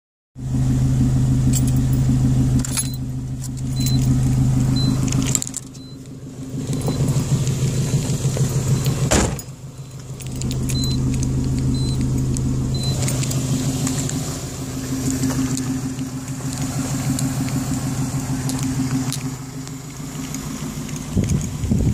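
Nissan 240SX (S13) engine idling steadily, kept running by an HKS turbo timer after the key is pulled from the ignition; keys jingle early on and a single knock, like the car door shutting, comes about nine seconds in. A few short high beeps sound in two runs.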